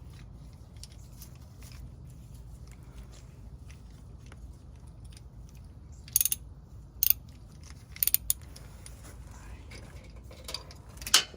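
A few short, sharp metallic clicks and clinks from hand tools being worked during an oil change, likely an oil filter wrench, the loudest near the end. A steady low hum runs underneath.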